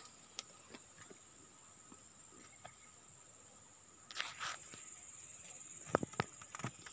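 Steady high-pitched drone of insects at the streamside. A brief hiss about four seconds in, and a few sharp clicks near the end.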